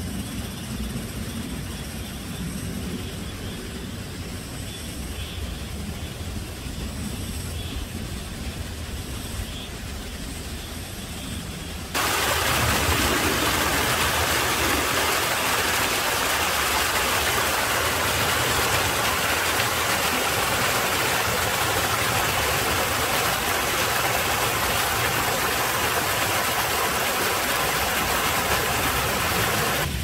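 Small mountain stream cascading down rock steps, a steady, even rushing of water that starts abruptly about twelve seconds in and is the loudest sound. Before it there is a low rumble with faint high tones.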